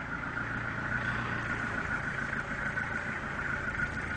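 A steady high-pitched machine whine over a low hum, holding one pitch throughout, from machinery at the parked rescue helicopter with its rotor stopped.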